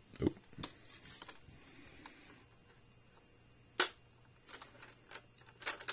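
Scattered light plastic clicks and taps from a diecast toy truck and a plastic toy garage playset being handled, with one sharper click about four seconds in and a cluster of small clicks near the end.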